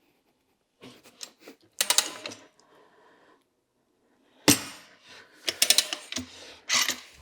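Scattered metal clanks and clicks from a manual motorcycle tire changer as its mounting head and bar work a tire bead onto a spoked rim, the loudest clank about four and a half seconds in.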